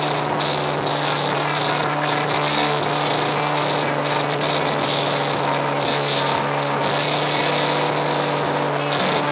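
Boat motor running steadily at an even cruising speed, a constant hum under the rush of water and wind.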